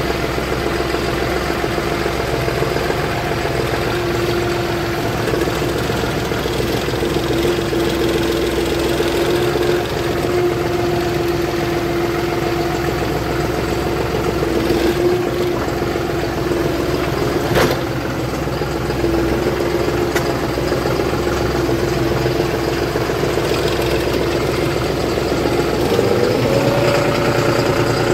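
John Deere tractor's diesel engine running steadily, its note rising a little near the end as it picks up revs.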